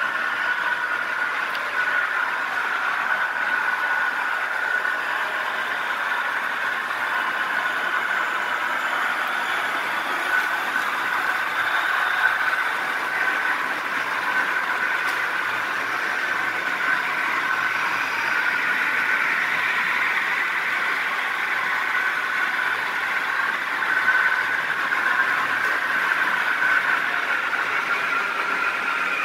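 Märklin HO model trains running on the layout: a steady whir of the small locomotive motors and wheels rolling on the track.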